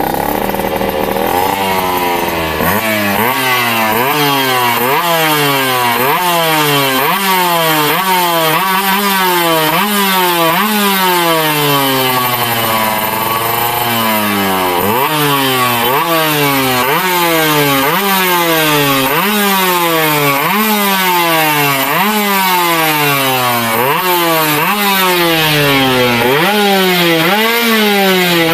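Suzuki Satria two-stroke engine, bored out to 133cc with a custom 8-port block, revved over and over with an aftermarket silencer. Each rev climbs for most of a second and then drops back, about once a second, with one slower, longer rev around the middle.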